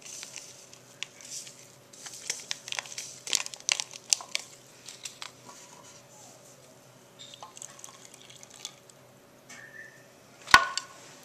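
A paper yeast packet crinkling and being tapped as the yeast is shaken into a plastic cup. Then come small handling clicks and warm water poured from a plastic measuring cup, with one sharp plastic knock near the end.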